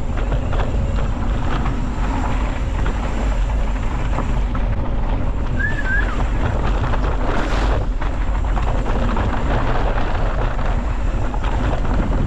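Riding noise from a mountain bike on a dirt singletrack: wind buffeting the camera microphone over the crunch and rattle of tyres and bike on the trail. A brief high chirp sounds about halfway through.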